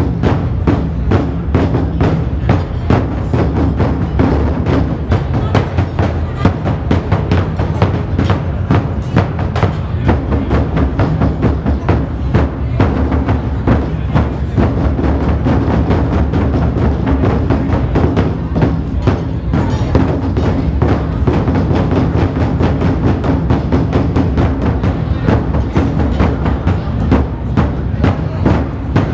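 An ensemble of large Chinese barrel drums (tanggu) beaten with sticks in a steady, fast rhythm of strikes.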